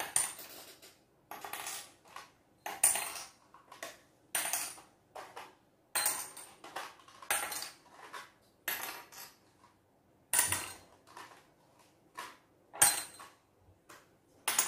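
Small objects dropped one at a time into small glass jars, each landing with a sharp glassy clink and a short ring, roughly one a second.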